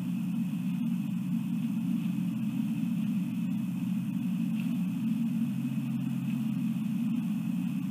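Steady low rumble with a faint thin high tone held above it, unchanging throughout: background ambience picked up by an outdoor camera microphone at night.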